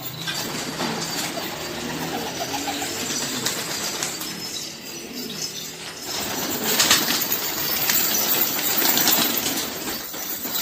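A flock of baladi (local domestic) pigeons flapping their wings in flight, with a louder stretch of wingbeats about two-thirds of the way through.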